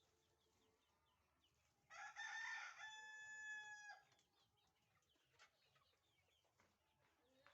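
Fayoumi rooster crowing once, starting about two seconds in and ending on a held, steady note; otherwise near quiet with faint small sounds.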